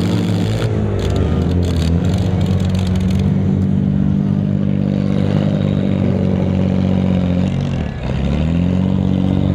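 Six-cylinder demolition derby car engines running and revving under load, the pitch dropping briefly near the end and then climbing again. Sharp clattering comes through in the first few seconds.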